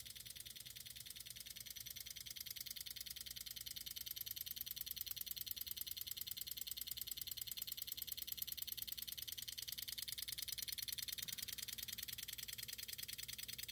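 Small DPDT electromechanical relays on a breadboard clicking rapidly and evenly, switched by a 10 Hz clock in an accelerated wear test of their contacts.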